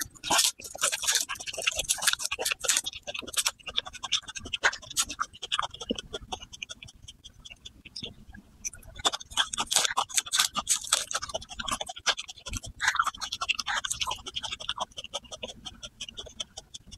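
Dry garlic skins crackling and rustling as they are peeled off by hand, with crisp crunching bites and chewing of raw garlic cloves.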